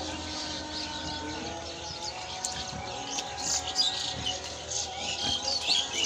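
Small birds chirping and twittering, more busily near the end, over soft background music with held notes.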